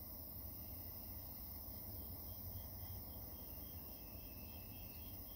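Quiet workshop room tone: a low steady hum. From about two seconds in, a faint high-pitched chirp repeats about three times a second.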